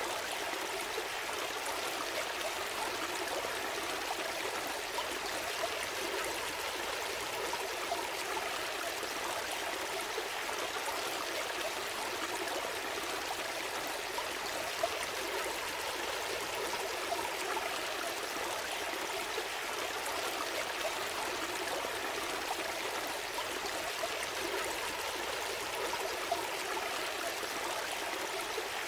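Shallow stream flowing steadily, a continuous even rush of water with small trickles and gurgles, no breaks or changes.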